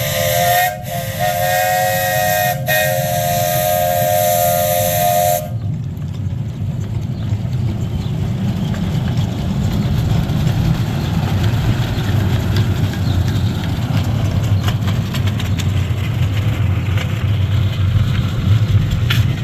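A steam locomotive's chime whistle sounds in one long blast with two brief breaks and cuts off about five and a half seconds in. After that comes a steady low rumble with a hiss.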